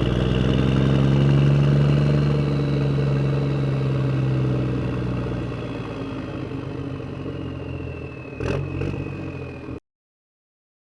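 A motor running steadily with a low hum and a thin high whine that slowly falls in pitch. Two sharp clicks come near the end, then the sound cuts off abruptly.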